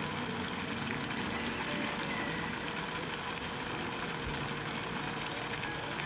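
Steady outdoor background noise, a low hum of distant traffic, with a few faint short chirps.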